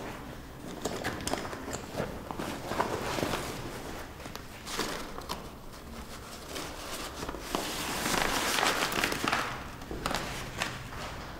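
Rustling and handling noises of a cloth bag being rummaged through, with scattered small knocks and shuffles; the rustling grows louder for a couple of seconds past the middle.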